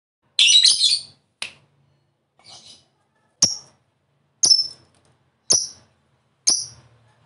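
Lovebird calling: a rough, high chatter lasting under a second, followed by a string of short, sharp high chirps about once a second.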